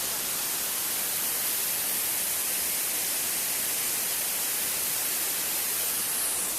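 Waterfall: a steady, even rush of falling water, a hiss strongest in the high end.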